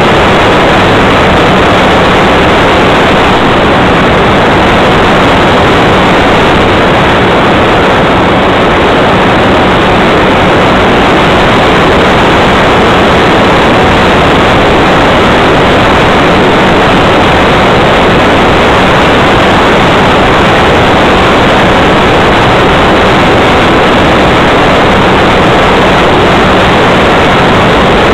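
Motor and propeller of an RC model airplane in flight, heard through its onboard camera's microphone as a loud, steady, harsh rush with a faint constant hum. The pitch holds steady throughout.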